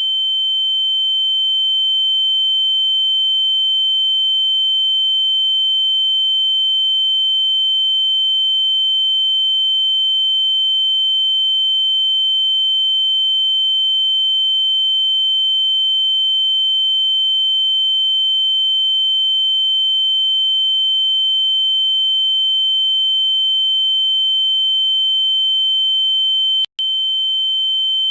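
Steady, loud high-pitched electronic sine tone with a fainter lower tone beneath it, unchanging in pitch; it cuts out for an instant about 27 seconds in and resumes at once.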